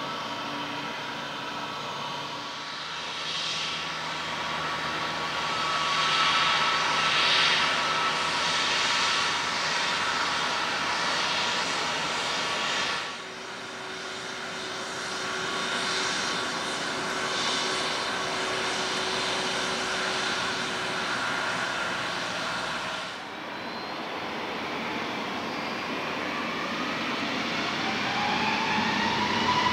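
Hawaiian Airlines Airbus A321neo's Pratt & Whitney geared turbofan engines running with a steady whine as the jet moves on the runway. Near the end the engines spool up for takeoff, the whine rising in pitch and getting louder.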